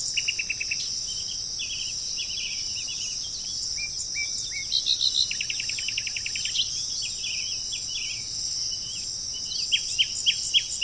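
Small songbirds chirping and giving quick trills, with a rapid trill about halfway through and a run of sharp chirps near the end, over a steady high insect buzz.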